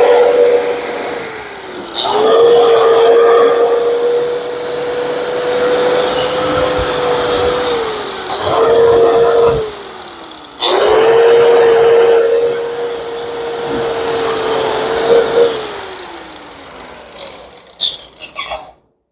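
Angle grinder grinding the paint off a minibike's tubular frame down to bare metal, prepping the spot for welding. Its motor runs with a steady whine and is let off three times, falling in pitch as it coasts down before spinning up again, then winds down to quiet near the end.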